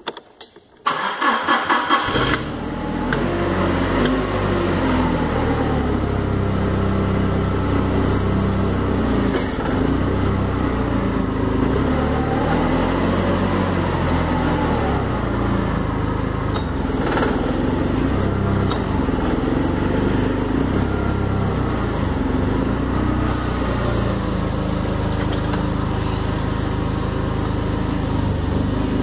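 Komatsu 25 propane forklift engine being started: the starter cranks in quick pulses for about a second and a half, the engine catches, then idles steadily, its pitch drifting up and down a little at times.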